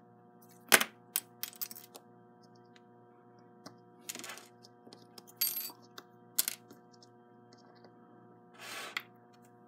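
Small metal and plastic parts clicking and clattering on a workbench as a pancake armature is taken out of a slot-car test chassis, with a cluster of sharp clicks about a second in and a few short scrapes later. A steady hum sits underneath.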